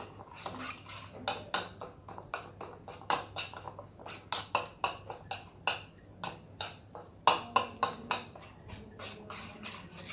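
A hand mixing a thick yogurt marinade in a bowl: irregular wet squelches and slaps, several a second, with a louder run of them about seven seconds in.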